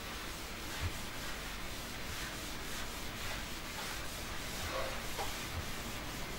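Faint scratchy strokes of handwriting on a writing surface as the working is written out, with a soft knock about a second in.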